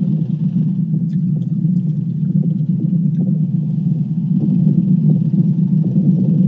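Low, steady droning hum, the kind of eerie 'strange sound in the sky' linked to doomsday rumours, which the uploader takes for a fake.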